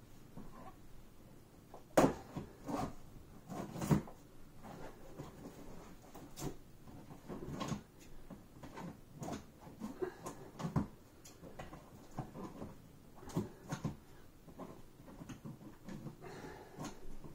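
A cardboard box being cut and pulled open by hand: irregular knocks, scrapes and rustles of cardboard, with the sharpest knocks about two and four seconds in.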